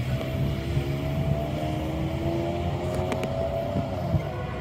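Metrolink diesel locomotive pulling away in the distance, its engine droning over a low rumble, the pitch rising slowly as it accelerates and easing off near the end.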